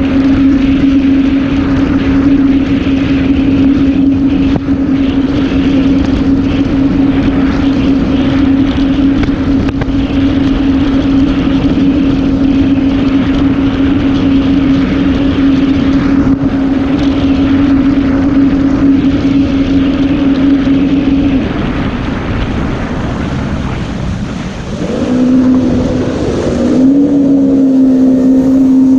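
Yamaha VX110 WaveRunner's four-stroke engine running at a steady high speed, with wind on the microphone. The engine eases off about 21 seconds in, then picks back up about 25 seconds in and settles into a steady run again.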